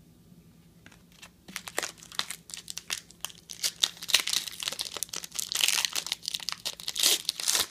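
Foil trading-card pack being crinkled and torn open: dense, irregular crackling of the wrapper that starts about a second and a half in and grows louder.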